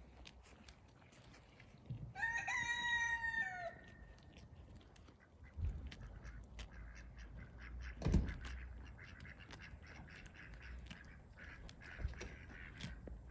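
A farmyard fowl gives one drawn-out call lasting about a second and a half, starting about two seconds in and dropping in pitch at its end. Scattered small clicks and knocks run throughout, with a low thump about eight seconds in.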